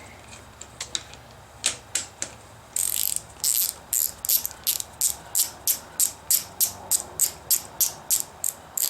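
Ratchet wrench clicking in steady strokes, about three clicks a second after a few scattered clicks at first. It is tightening the bar-end insert for a hand guard into the end of a motorcycle handlebar.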